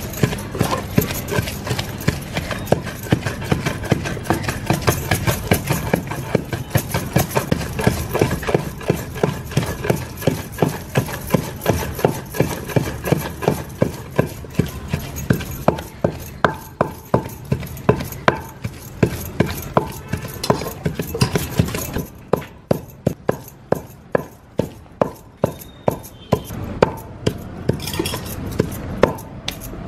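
Repeated sharp knocks from hand food preparation, about two to three a second, over a steady low hum that drops away about two-thirds of the way through, leaving the knocks alone.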